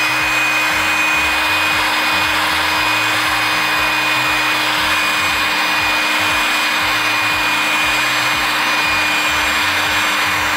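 Handheld electric heat gun running steadily: an even fan hiss with a steady high whine, blowing hot air onto the underside of a PS3 motherboard to reflow its solder.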